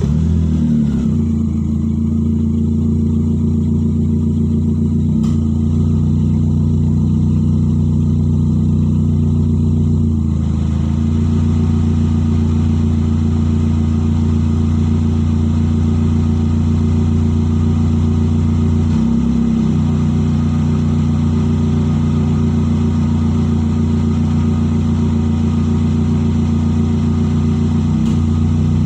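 Car engine with a leaking exhaust idling steadily just after being started, with a loud, deep note. A few brief wavers in its pitch come about one, ten and nineteen seconds in.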